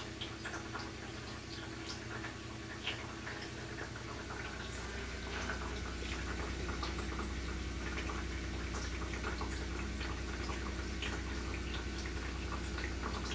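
Vyair RO+DI reverse-osmosis unit's electric booster pump running with a steady low hum, louder from about four and a half seconds in, with faint ticks and water trickling through the system as it fills its drum.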